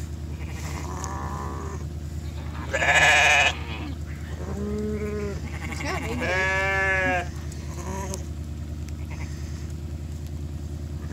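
Sheep bleating, from a ewe and her newborn lambs: about five separate calls, the loudest a high bleat a little before halfway and a lower call after it. A steady low hum runs underneath.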